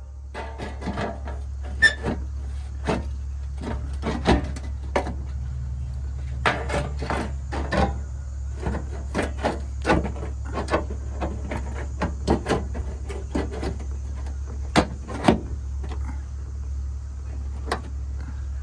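Irregular sharp clicks and knocks, a few of them louder, over a steady low machine hum that starts just before.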